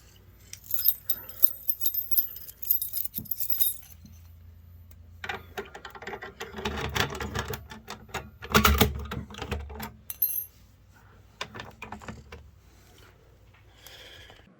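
A ring of keys jangling and clicking, then a louder stretch of knocks and rattles of handling.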